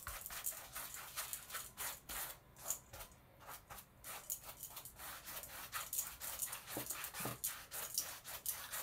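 Round paintbrush scrubbing paint into the fabric of a lampshade, a rapid run of short scratchy brush strokes.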